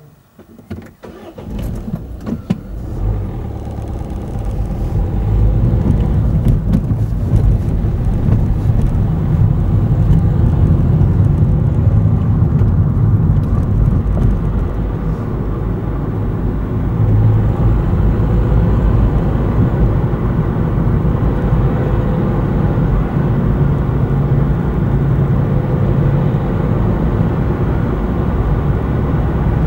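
A car pulling away from a standstill and driving along a road, heard from inside the car. A few sharp clicks come in the first couple of seconds, then engine and tyre noise builds over several seconds into a steady low rumble.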